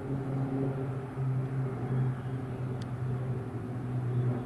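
Three single-engine propeller aircraft flying overhead in formation: a steady, low drone from their engines and propellers.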